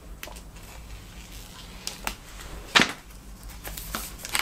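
Plastic shrink-wrap being torn and peeled off a vinyl LP sleeve: scattered crinkles and clicks, the loudest a sharp snap about three seconds in.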